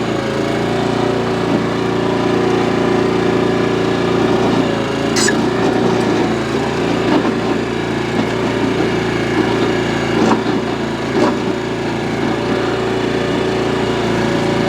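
The small gas engine of a Harbor Freight (Central Machinery) towable backhoe runs steadily, driving the hydraulics while the bucket digs into hard-packed, gravelly dry soil. A few sharp knocks cut through it, about five seconds in and twice more a few seconds later.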